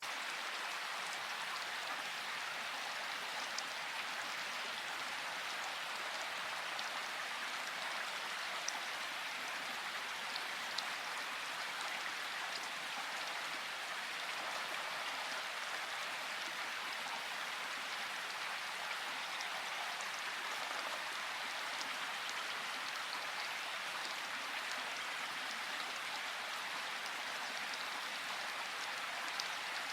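Steady rain falling, a dense even hiss with scattered individual drops ticking sharply now and then.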